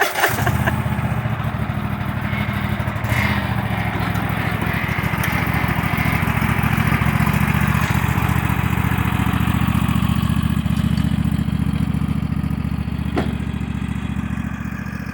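Husqvarna riding lawn mower's engine running steadily while the mower backs up a wet slope on ATV tires.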